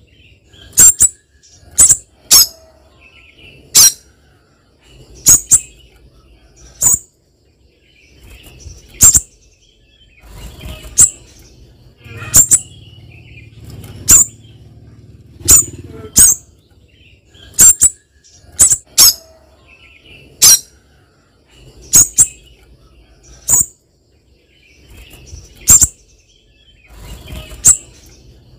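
Spiderhunter giving sharp, very high call notes, singly or in quick pairs, repeated every second or two.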